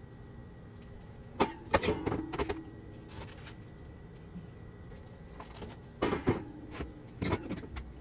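Plastic storage bins and items knocking and clattering against the wire shelves of a refrigerator as they are lifted out, in two short bursts: one about a second and a half in, another about six seconds in.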